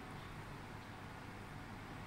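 Steady low hum with a faint hiss, with no distinct events: room tone.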